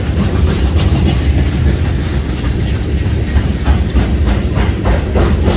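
Freight train of covered hopper cars rolling past: a steady low rumble with the wheels clicking over the rail joints, the clicks coming thicker in the second half.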